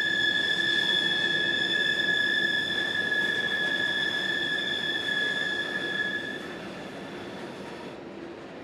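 Freight car wheels squealing against the rail on a sharp curve: one steady, high-pitched squeal that fades out about six and a half seconds in, leaving the quieter rolling noise of the train.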